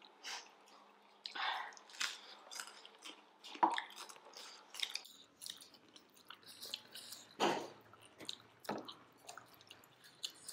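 Chewing and mouth sounds of people eating steamed momo dumplings, in irregular short bursts, with a couple of louder ones partway through.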